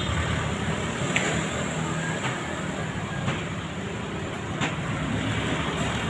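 Road traffic: the steady noise of cars running past on a busy city street, with a few faint ticks scattered through it.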